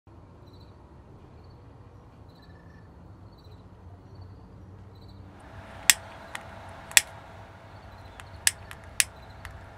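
Intro sound effects: a low rumble with faint, evenly repeating high chirps, then about halfway a hiss swells in and four sharp cracks sound roughly a second apart, with lighter clicks between them.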